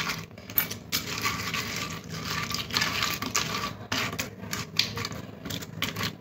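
A hand kneading raw shell-on prawns coated in salt and turmeric on a ceramic plate: wet squishing and rubbing with irregular light clicks of the prawns against the plate.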